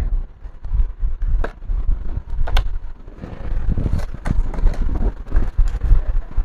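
Clicks, knocks and low thumps of laptop parts being handled on a workbench: spare laptop screen panels being picked up, set down and connected. The knocks are busiest in the second half.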